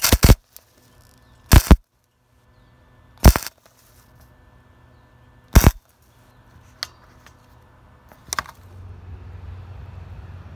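Lincoln PRO MIG 140 flux-core wire-feed welder laying short tack welds on a thin dirt-bike muffler at a low heat setting. The arc crackles in four loud, brief bursts about one and a half to two seconds apart, then two fainter short ones.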